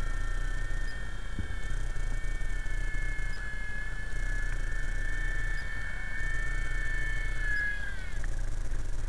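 Small electric RC helicopter's motor whining, a steady high tone that wavers slightly with the throttle, then falls in pitch and winds down about eight seconds in as the power is cut. A low rumble runs underneath.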